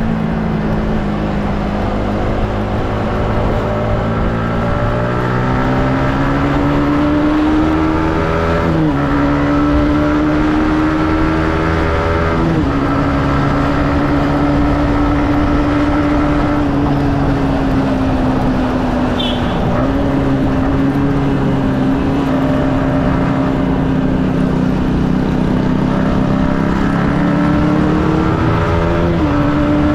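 Stock Yamaha MT-15's 155 cc single-cylinder engine pulling the bike along at road speed. Its pitch slowly rises and falls with the throttle, with a few sudden steps in pitch at gear changes.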